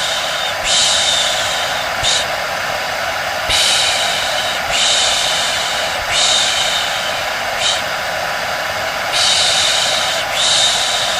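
Hair dryer running steadily with a constant whir and a thin hum, overlaid by a person's long 'shhh' shushes, each about a second long, repeated at uneven intervals of one to three seconds: a shushing sleep sound for soothing a baby.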